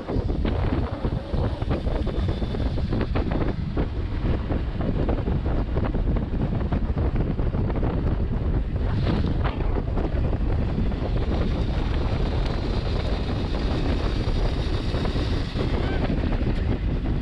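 Heavy wind buffeting on the microphone of a motorcycle-mounted camera at road speed: a steady, loud, low rumble that covers any engine sound.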